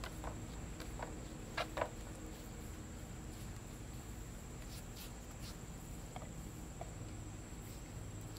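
Crickets trilling steadily at a high, even pitch, with a couple of short knocks about one and a half to two seconds in.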